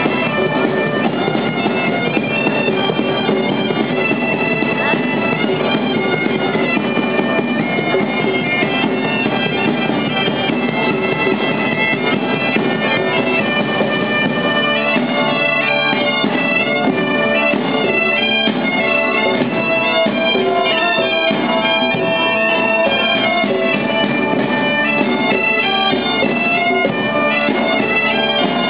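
Several bagpipes playing a lively folk tune in short stepping notes over a steady drone, with a drum keeping the beat.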